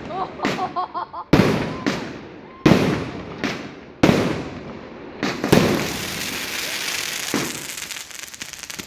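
Fireworks going off overhead: a string of sharp bangs, one every second or so, then from about five and a half seconds in a few seconds of dense, steady crackling.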